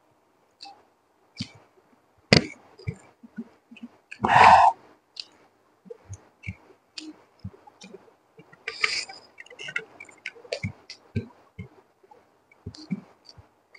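Close-miked mouth sounds of chewing fried rice: scattered wet smacks and clicks, with fingers squishing and gathering rice on the tray. A sharp click about two seconds in, and a louder wet burst lasting about half a second around four seconds in.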